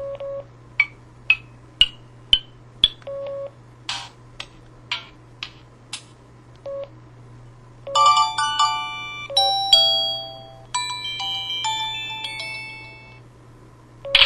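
my5000 mobile phone playing its built-in sound effects through its small speaker: a string of short electronic blips and clicks with a few brief low beeps, then, about eight seconds in, a bright synthesized chime melody lasting several seconds. A faint steady low hum runs underneath.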